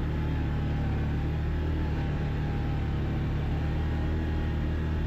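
An ATV (quad) engine running steadily while riding at a slow, even pace, giving a constant drone with no revving.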